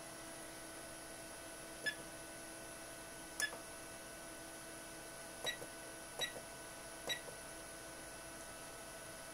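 IBM 3995 C40 optical library's operator panel giving five short beeps as its buttons are pressed, over the steady hum of the machine's electronics.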